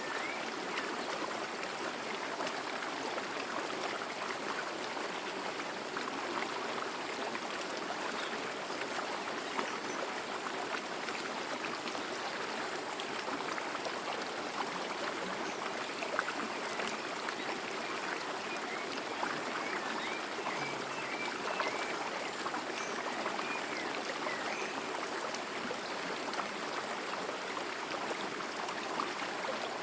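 Small forest stream running over rocks, a steady babbling and trickling of water.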